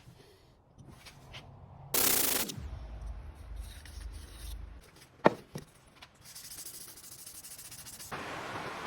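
Woodworking sounds while making a small wooden tool holder: a loud half-second burst of noise about two seconds in, a sharp knock about five seconds in followed by a smaller one, and light rubbing and hissing between them.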